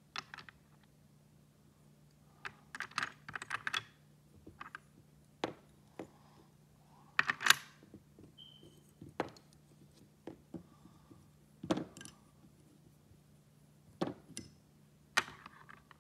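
Irregular plastic clicks and clacks of IQ Twist puzzle pieces being handled and fitted onto the pegged board, with a quick run of taps about three seconds in and single knocks scattered after.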